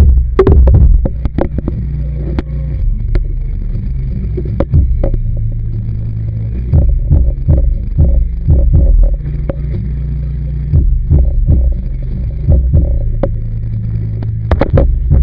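Muffled underwater sound picked up through a Kodak PlaySport's sealed waterproof body: a steady low hum with frequent irregular knocks and clicks.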